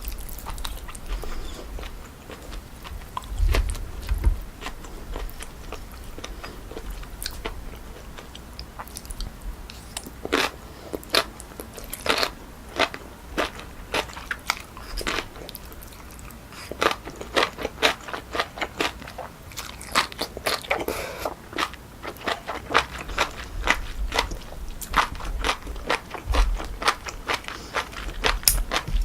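Close-miked chewing of cold pork trotter salad (naengchae jokbal): a steady stream of crisp, crunchy bites and wet chewing clicks, coming in denser clusters in the second half, with a couple of soft low thumps.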